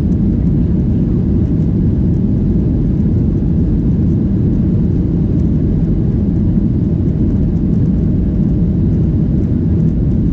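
Boeing 737-800 cabin noise heard from a rear economy seat: a steady low drone from its CFM56 engines, with no change in level or pitch.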